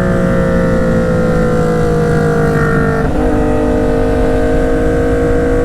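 Yamaha MT-09's inline three-cylinder engine running hard under way, its pitch easing down slightly, with a gear change about three seconds in and a steady note after it, over low wind rumble on the microphone.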